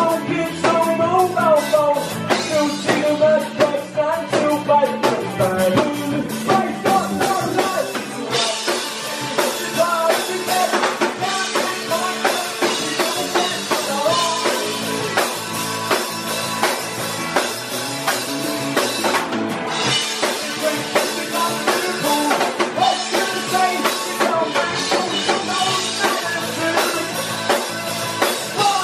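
Live rock band playing: electric guitars, bass guitar and drum kit, with a male lead vocal that is clearest in the first several seconds. The cymbals get busier from about eight seconds in.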